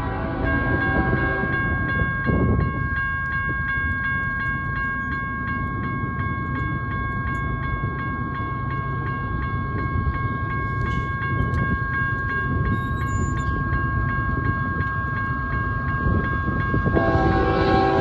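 Grade-crossing warning bell ringing steadily over the low rumble of an approaching diesel freight train. The lead locomotive's horn chord ends just after the start and sounds again near the end.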